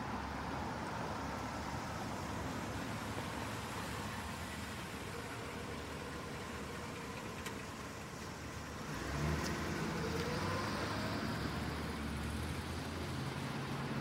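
Light, distant activity ambience: a steady hiss and hum. About nine seconds in, a louder low hum with a brief rising tone joins it and carries on.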